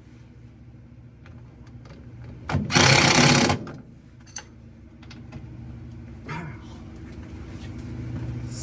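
A power tool runs in one short, loud burst of just under a second about three seconds in, over a low steady hum.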